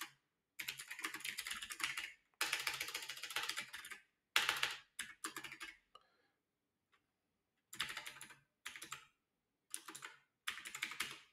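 Typing on a computer keyboard in about eight quick bursts of keystrokes, with short pauses between them.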